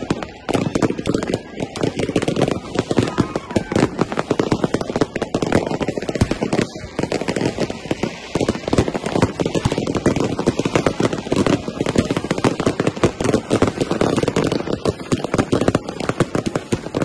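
Fireworks going off in a rapid, continuous barrage of overlapping bangs and crackles, with no pause between them.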